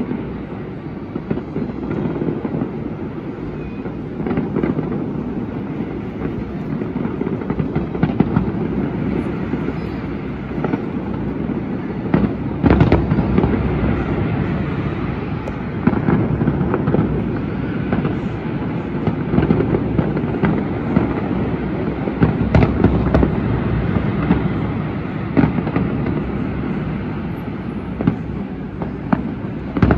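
Fireworks display: a continuous low rumble of aerial shell bursts with frequent sharp cracks and bangs, heaviest through the middle stretch.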